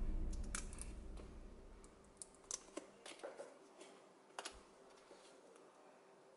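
Background music fading out, then a handful of faint, sharp clicks of small plastic LEGO pieces being handled and set down on the tabletop.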